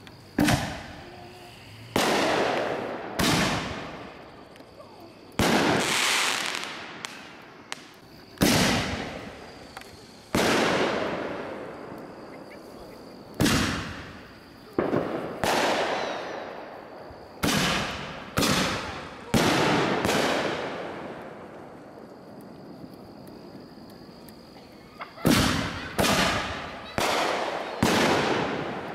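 Aerial fireworks bursting overhead: a string of sharp bangs a second or two apart, each fading away over a second or so. The bangs pause for a few seconds, then come in a quick run of bursts about half a second apart near the end.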